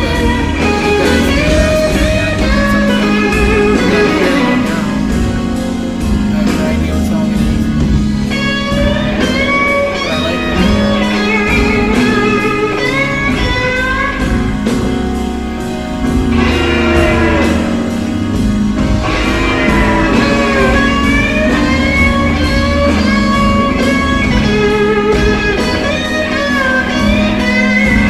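Electric blues guitar playing a lead line full of bent notes over a bass line, from a live band sound check.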